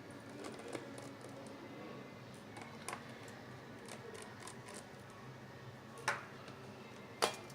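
Small screws and the aluminium bottom cover of a MacBook Pro being handled during disassembly: a few scattered sharp clicks and taps, about four, over a faint steady hum.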